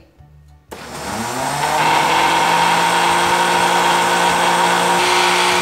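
Countertop blender switched on under a second in, its motor rising in pitch as it spins up and then running steadily, blending a liquid mix of warm milk, egg yolks, margarine and yeast. It shuts off right at the end.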